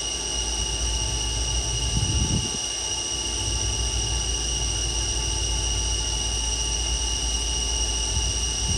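2007 Haas SL-20 CNC lathe spindle running at a steady 2000 RPM: a steady whine of several high tones over a low hum.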